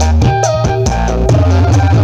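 Dangdut koplo music playing loud, with heavy bass, drums and a melody line.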